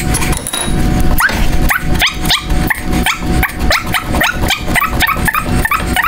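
Old outer tie rod end on a Peugeot 205 GTI's steering being spun off its threaded rod by hand, squeaking in a fast, even run of short rising squeaks, about four a second.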